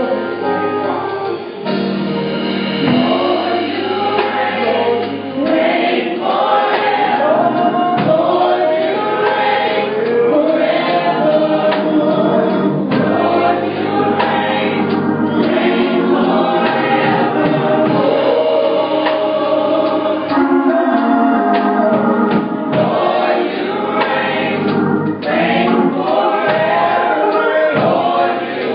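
Gospel praise team singing together, one singer on a hand microphone, over steady low tones.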